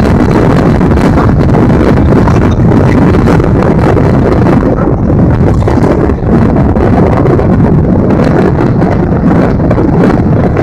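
Strong wind buffeting the microphone: a loud, steady, low rumble.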